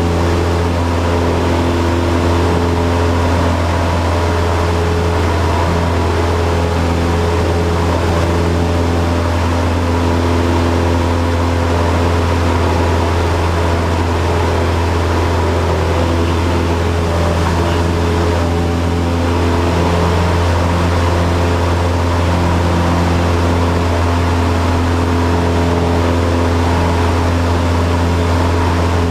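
Cessna 172's piston engine and propeller droning steadily at constant power, heard inside the cabin.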